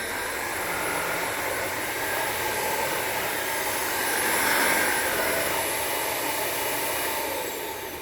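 Hoover WindTunnel Air Pro upright vacuum cleaner running, a steady rush of air with a high motor whine. Near the end it fades, the whine falling in pitch as the motor winds down.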